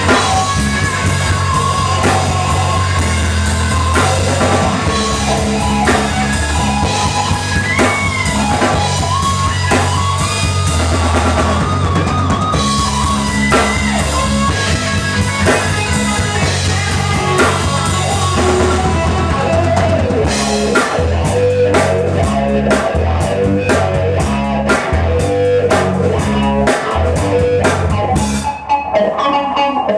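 Live jam band playing a rock-funk groove on electric guitar and drum kit, with a low bass part underneath. The drumming grows busier about two-thirds of the way through, and the low end drops out near the end.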